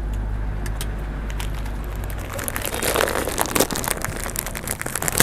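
Close-up eating sounds: crunchy chewing and mouth clicks, likely from kerupuk crackers, in a dense run of sharp crunches that begins about two seconds in. Underneath is a steady low hum that drops away at about the same point.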